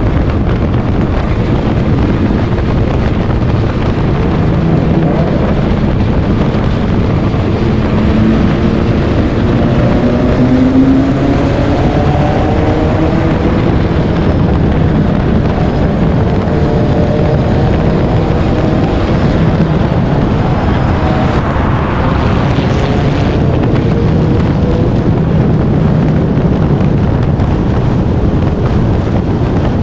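In-car sound of a four-cylinder stock race car at racing speed: the engine note climbs and drops again several times over heavy wind and road noise on the microphone.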